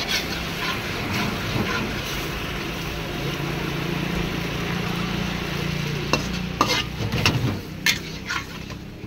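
Spatula stirring paneer Manchurian gravy in a wok over a gas flame, the sauce sizzling steadily. In the last few seconds the spatula scrapes and knocks sharply against the wok several times.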